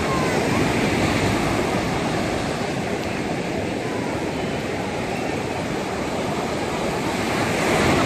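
Sea surf washing onto the beach: a steady rushing noise with no clear breaks, swelling slightly near the end.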